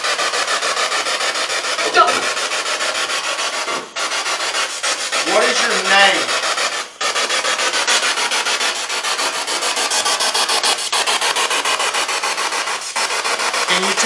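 Ghost box (spirit box) sweeping rapidly through radio stations, played through a Bluetooth speaker: a loud, steady hiss of static finely chopped by the sweep. A brief snatch of broadcast voice comes through about five to six seconds in.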